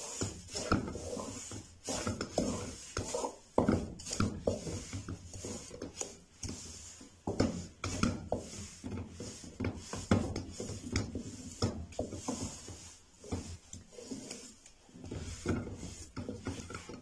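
A wooden spoon scraping and knocking against a metal pot in quick, irregular strokes, stirring roasted sesame seeds into melted jaggery into a thick, gritty mixture.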